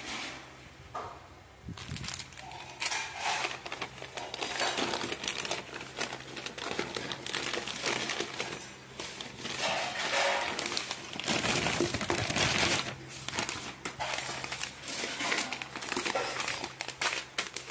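Thin plastic JioMart delivery bag crinkling and rustling in irregular bursts as it is handled, starting about two seconds in.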